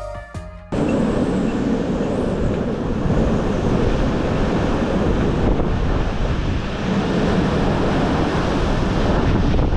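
Strong wind buffeting the microphone, a loud steady rumble and rush, after a few notes of music that cut off suddenly under a second in.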